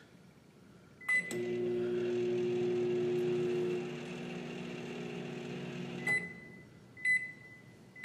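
Galaxy countertop microwave oven set for a five-second run: a keypad beep about a second in, then the oven hums steadily for about five seconds, the hum dropping in level partway through. Two short beeps near the end as the cycle finishes.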